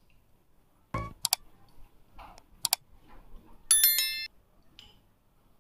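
Subscribe-button sound effects: a thump and a couple of sharp clicks, then a short bright bell chime about four seconds in.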